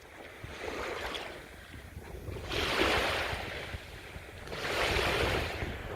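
Small waves washing onto the beach, each swelling and fading about every two seconds, over a low steady wind rumble.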